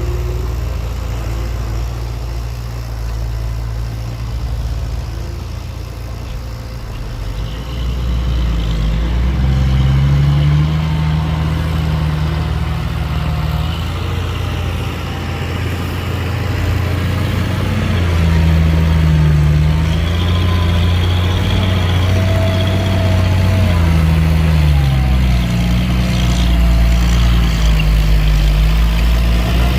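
Heavy diesel engines of earthmoving machinery working, their pitch rising and falling again several times as the machines rev under load.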